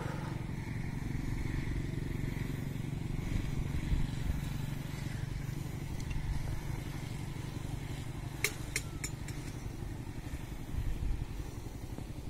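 Motorcycle engines running steadily, a low hum over a low rumble, with a few sharp clicks about eight and a half seconds in.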